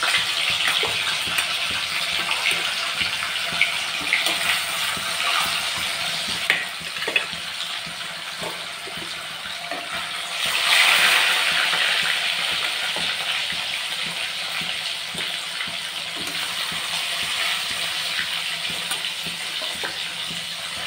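Katla fish pieces frying in smoking-hot mustard oil in an iron kadai: a steady, loud sizzle that swells about ten seconds in as another piece is slid into the oil with a spatula. A few sharp ticks come over the first seven seconds.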